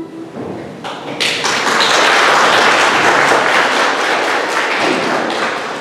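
Audience applauding, starting about a second in and easing off near the end, with knocks mixed in as the children sit down on benches.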